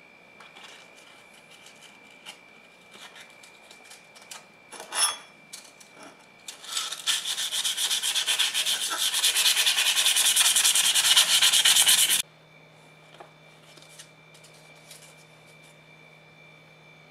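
Fine abrasive paper rubbed by hand along the metal shank of a caulking iron, with rapid back-and-forth scraping strokes that last about six seconds and stop abruptly. Before that there are a few light taps and scrapes as the paper and tool are handled.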